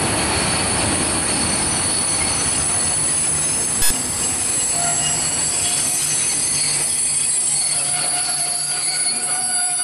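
Container freight train rolling past close by: a steady rush of wagon wheels on the rails with a high, steady squeal from the wheels. One sharp bang about four seconds in.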